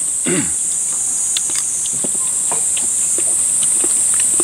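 Steady high-pitched insect chorus, with scattered light clicks of chopsticks and spoons against bowls and a brief vocal murmur just after the start.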